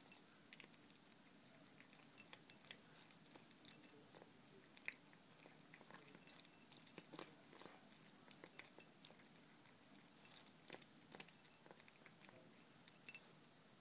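A cat chewing and licking tuna from a bowl: faint, irregular small clicks and smacks.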